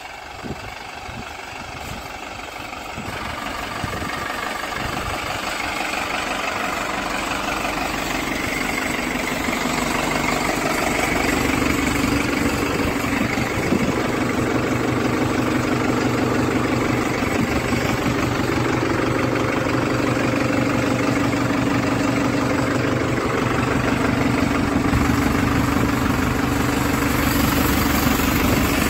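New Holland 9010 tractor's diesel engine running, growing steadily louder over the first ten seconds or so and then holding at a steady, even note.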